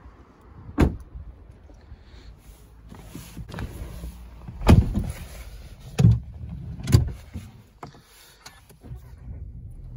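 Volkswagen Passat car doors being shut and someone climbing into the driver's seat: four solid thumps, the loudest about halfway through, with rustling and handling knocks between them.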